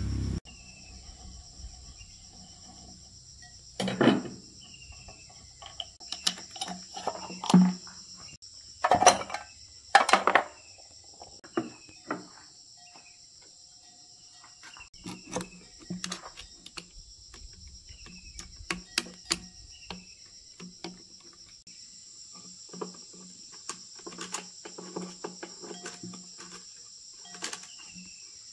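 Scattered metal clinks and knocks of hand tools on diesel engine parts, loudest in a cluster between about 4 and 10 seconds in, over a steady high chorus of insects.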